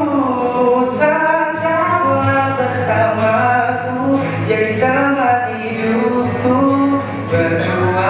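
A man singing long, held melodic notes into a microphone over his own acoustic guitar accompaniment.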